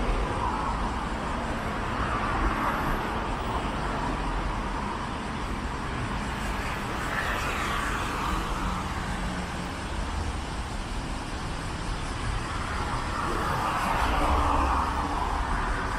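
City street traffic: cars passing one after another over a steady low rumble, the sound swelling as each vehicle goes by.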